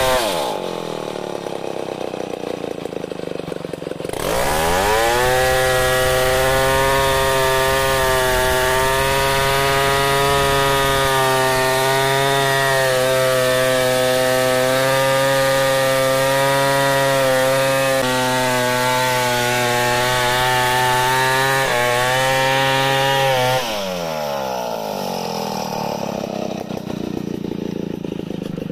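Stihl 070 two-stroke chainsaw ripping a log lengthwise. It drops to idle just after the start, revs back up about four seconds in and runs steadily at full throttle for nearly twenty seconds, then falls back to idle near the end.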